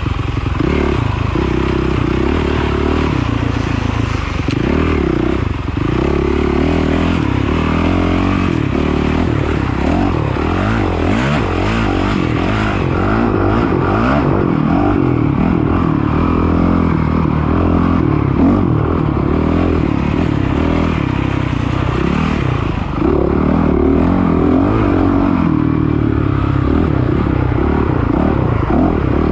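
Dirt bike engine being ridden hard off-road, revving up and down continuously as the throttle is opened and closed.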